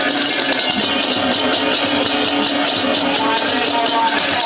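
Balinese gamelan music: small cymbals clashing in a fast, even rhythm over ringing, sustained metal tones.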